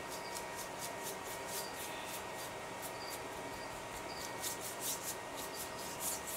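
Small paintbrush stroked quickly back and forth over a book page, laying on purple paint: a string of short, scratchy bristle-on-paper rubs, a few a second.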